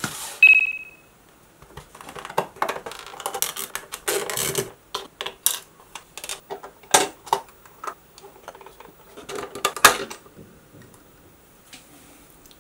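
Toy robot figure parts clicking and tapping as they are fitted onto their display stand: a sharp knock with a brief ringing ping near the start, then a run of irregular light clicks and knocks.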